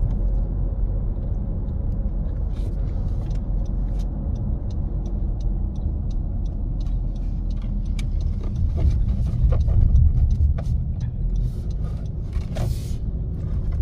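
Steady low rumble inside a car's cabin, with faint small clicks of someone chewing food.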